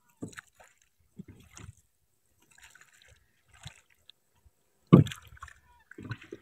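Wooden rowboat being rowed with oars: water splashing and gurgling around the oar blades in short, irregular strokes, the loudest about five seconds in.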